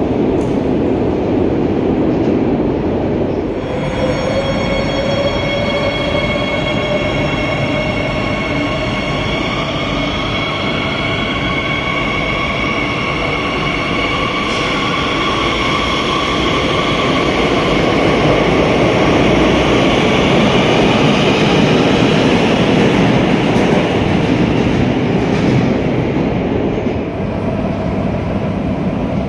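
CAF Series 8000 metro train running, its electric traction motors giving a whine that starts about four seconds in and rises slowly in pitch as the train accelerates, over a steady rumble of wheels on rail.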